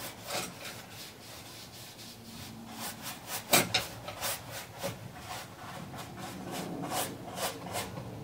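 Flat paintbrush brushing acrylic paint onto a stretched canvas: short strokes, a few each second, the loudest about three and a half seconds in.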